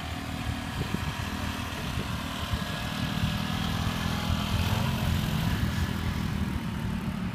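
Quad bike (ATV) engines running: a steady low engine note that grows a little louder partway through.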